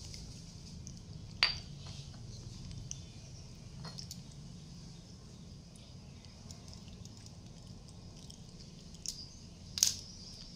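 Two sharp clicks of small hard objects being handled, one about a second and a half in and a louder one near the end, with a few fainter ticks between, over a low steady hum.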